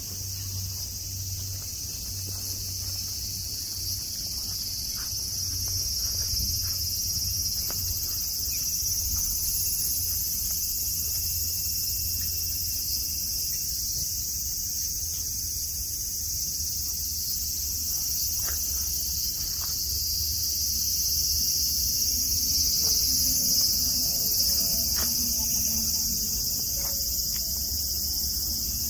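A loud, steady chorus of summer cicadas, shrill and unbroken, over a low background hum. Scattered faint crunching clicks come from sika deer cropping and chewing lawn grass.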